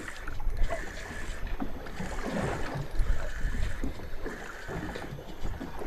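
Water sloshing against the hull of a small anchored boat, with wind buffeting the microphone and irregular low bumps.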